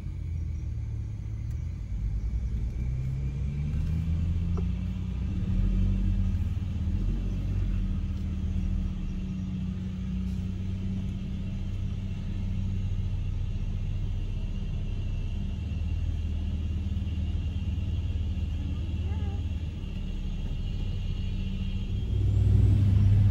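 Car engine and road noise heard from inside the cabin as the car climbs a steep hill, the engine note rising over the first few seconds and then holding steady under load.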